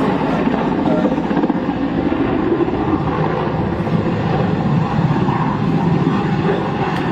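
Helicopter running: loud, steady engine and rotor noise.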